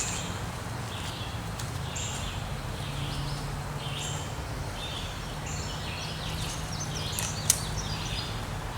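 Small birds chirping in short repeated calls, about one a second, over a steady low background hum. A single sharp click comes about seven and a half seconds in.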